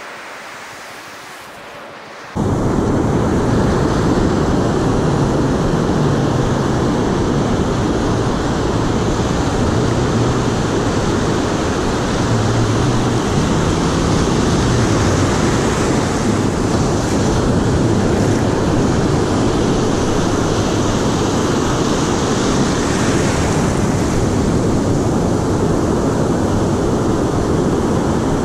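Breaking ocean surf, then about two seconds in a sudden, loud, steady rush of wind buffeting the microphone that covers the surf.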